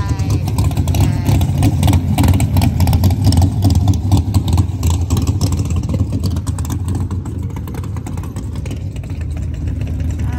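Modified hot-rod engines rumbling at low speed as the cars cruise past one after another, with a loud, choppy, crackling exhaust note. The rumble eases a little about two-thirds of the way through.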